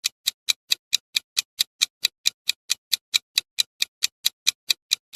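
A countdown-timer clock ticking sound effect: steady, evenly spaced ticks at about four to five a second.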